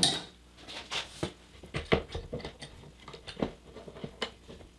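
Steel C-clamps being fitted and screwed tight on an aluminium rail and MDF board: a string of light, irregular clicks and knocks of metal on metal and on wood.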